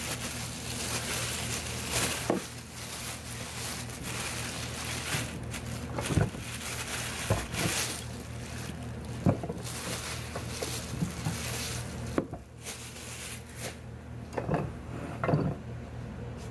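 Clear plastic bag crinkling and rustling as a cast-iron bench vise is unwrapped, with a few sharp knocks of the heavy vise being handled and set down on the wooden workbench.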